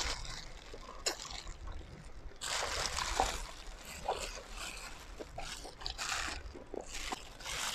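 Wet chewing and mouth sounds of someone eating steamed chicken, irregular and broken by short clicks and smacks.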